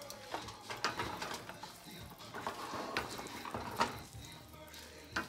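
Wooden spoons tossing sauce-coated cauliflower in a wok: irregular scrapes and knocks of wood against the pan.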